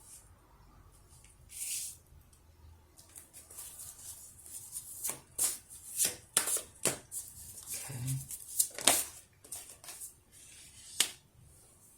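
A deck of oracle cards being shuffled by hand: a run of quick papery snaps and rustles after a brief swish near the start, loudest in the second half.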